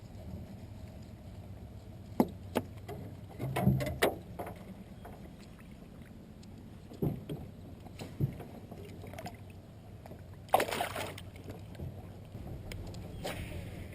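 Sharp knocks and clicks of handling on a fishing boat, scattered through and bunched into a louder cluster about ten seconds in, over a steady low hum.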